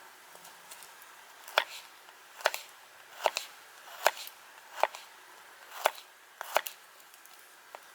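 Sharp, evenly spaced cutting strokes, seven of them about one every 0.8 seconds, as food is cut up.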